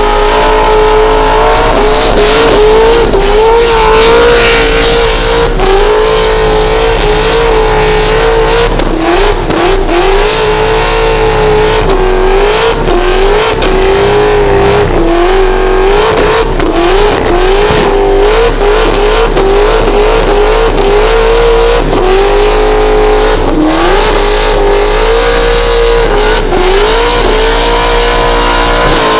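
Supercharged 427-cubic-inch V8 in a Holden Commodore ute running at high revs through a burnout, the pitch dipping and climbing back over and over as the throttle is worked. The rear tyres are spinning and squealing underneath.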